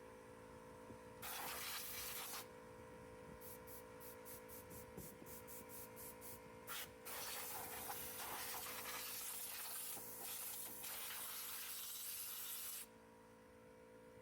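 Compressed-air blow gun blowing dirt off a Honda F501 tiller's engine: one short blast of hiss, then a quick series of short puffs, about five a second, then a long continuous blast that stops shortly before the end. A faint steady hum runs underneath.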